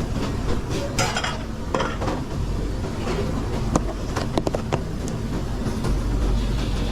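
Pans and metal utensils clattering on a busy commercial kitchen line: several sharp clinks and knocks, a cluster of them between about four and five seconds in, over a steady low hum.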